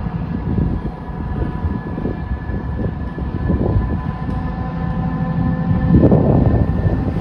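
A heavy diesel freight locomotive working hard as it approaches. A deep engine rumble carries a steady high whistle and grows louder, swelling about six seconds in.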